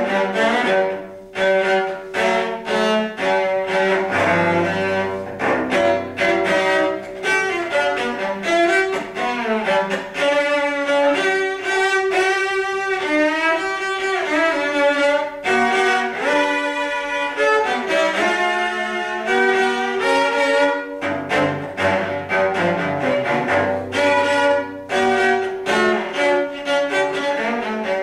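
Solo cello played with the bow: a moving melody over a low note held beneath it for long stretches, climbing higher in the middle with wavering held notes.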